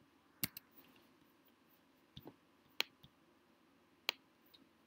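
Scattered sharp clicks from handling a computer, about seven at uneven intervals, some in quick pairs, over faint room tone.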